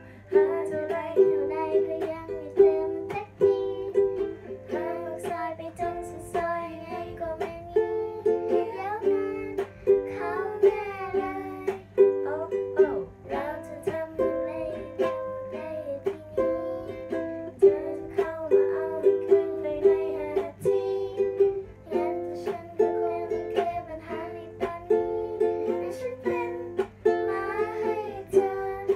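A young girl singing a song to a strummed ukulele accompaniment.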